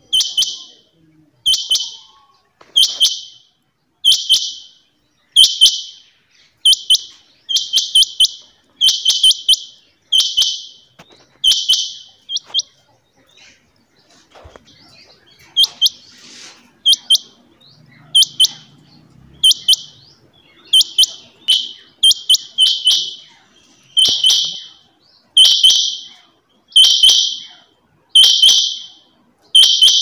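Caged rain quail calling: short, sharp, high-pitched calls repeated about once every second and a quarter, some in quick pairs, with a pause of a few seconds near the middle.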